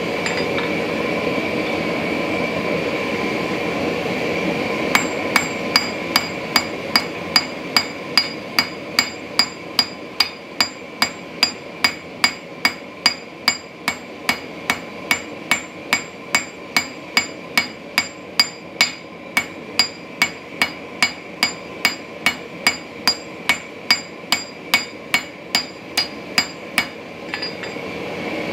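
Hand forging hammer striking hot steel on an anvil, about two ringing blows a second, starting about five seconds in and stopping near the end. Under it runs the steady rushing roar of the forge burner.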